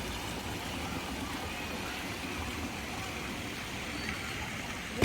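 Steady rumble and rushing hiss of a car driving slowly, with no distinct events.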